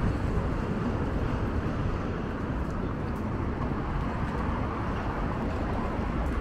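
City street ambience: a steady wash of road traffic noise, with no single event standing out.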